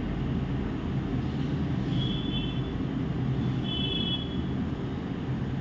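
Steady low whir of a running fan, with two brief faint high tones about two and four seconds in.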